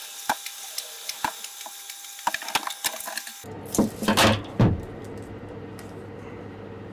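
Handling noise from the red plastic manual bilge pump as self-fusing tape is wrapped around it: scattered sharp clicks and small knocks, then a few louder rustling scrapes about four seconds in.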